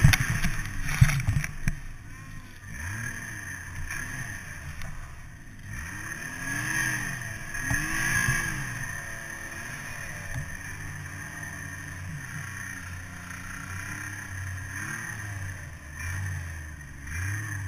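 Snowmobile engine revving up and down again and again as the sled ploughs through deep powder snow. There are a few heavy thumps in the first two seconds.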